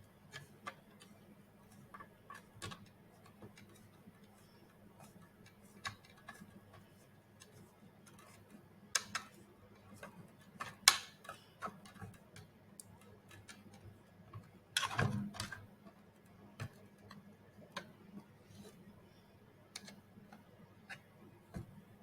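Irregular clicks and taps of small hard parts being handled during robot assembly, with a louder clatter about 15 seconds in, over a faint steady hum.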